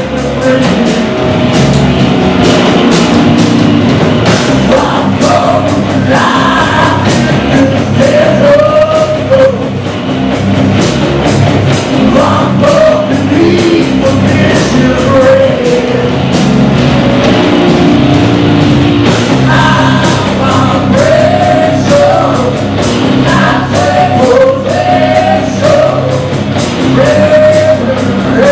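Live rock band playing loudly: a male singer over electric guitar, bass guitar and drums, with the drum hits steady underneath.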